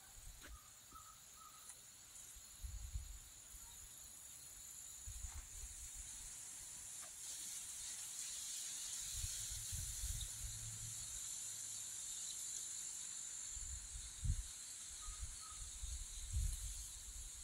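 A steady high-pitched insect chorus that swells through the middle, over soft low thumps and rumbles on the microphone from the handheld camera moving. A few faint short chirps come early and again near the end.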